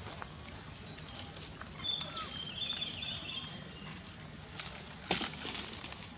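Short, high-pitched animal chirps and squeaks, some gliding upward, repeated over faint outdoor hiss, with a sharp click or crack about five seconds in.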